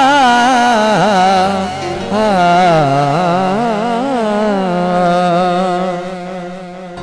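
A man singing a long, ornamented wordless line in Saraiki/Punjabi folk style, his held notes wavering and bending up and down in pitch. The line breaks briefly about two seconds in, then resumes and fades near the end.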